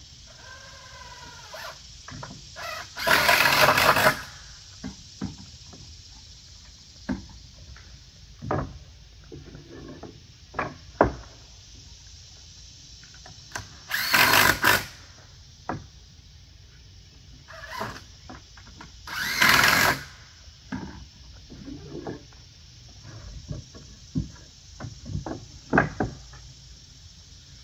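Cordless drill driving screws into wooden deck balusters in three bursts of about a second each. Short wooden knocks and taps come between the bursts as the pieces are handled.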